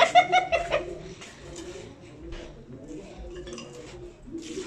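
A short voiced exclamation at the start, then a few light clinks and knocks of kitchenware around an aluminium basin. Near the end, hot water starts pouring from a jug onto tilapia in the basin, a steady splashing hiss.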